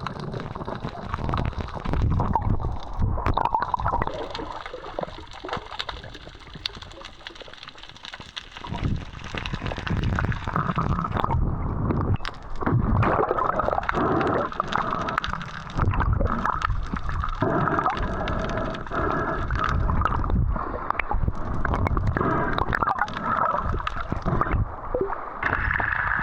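Seawater gurgling and sloshing around the camera in rough, choppy water, in irregular surges with scattered clicks and knocks.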